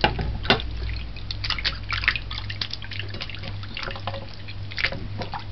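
Water splashing and dripping in a shallow plate as a piece of salt cod is rubbed and rinsed by hand to wash out the salt: irregular small splashes, with a sharper one about half a second in. A steady low hum runs underneath.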